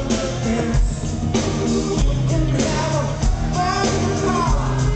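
Live rock band playing an upbeat song with heavy bass and drums while a man sings lead into a microphone.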